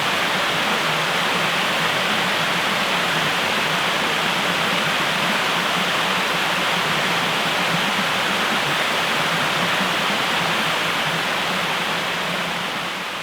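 Waterfall: a steady, even rush of falling water, beginning to fade out near the end.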